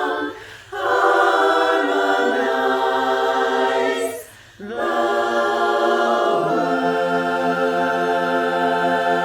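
Women's barbershop chorus singing a cappella in four-part harmony: two phrases, each broken by a short gap, then a long held chord from about two-thirds of the way in, with a low note entering under it.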